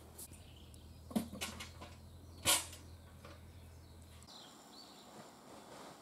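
A few sharp knocks, the loudest about two and a half seconds in, over a low steady hum that stops abruptly about four seconds in.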